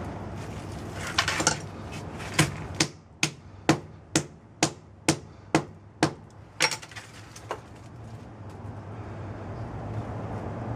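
Hammer blows on a microwave oven transformer being broken apart for its windings: about a dozen sharp metallic strikes, roughly two a second, after a couple of lighter knocks, ending with a single blow.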